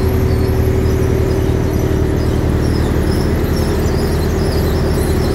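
Large agricultural machine with a round sheet-metal drum running steadily: a loud, even hum with a steady higher tone over it, and faint high squeaks scattered through.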